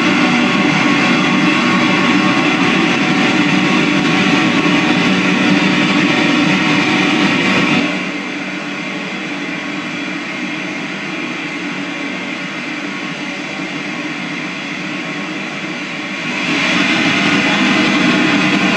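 Ghost-hunting ITC portal device putting out a continuous wash of garbled noise with faint tones running through it, played for listening to spirit answers. It drops in level about eight seconds in and comes back up near the end.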